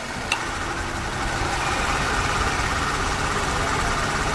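Honda City engine idling with its freshly fitted replacement air-conditioning compressor running, a steady hum. A single click about a third of a second in as the AC engages.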